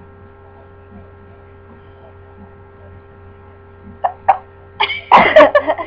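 A person burps loudly near the end, just after two short sharp sounds. Before that only a low steady hum is heard.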